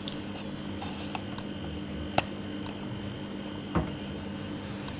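Quiet indoor room tone with a steady low electrical hum, broken by two light clicks, about two seconds in and just before four seconds; a faint high whine stops at the second click.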